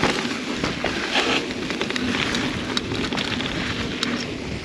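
Mountain bike rolling fast down a dirt singletrack: a steady rush of tyre noise on dirt and gravel, broken by frequent clatter and rattling as the bike runs over rough ground.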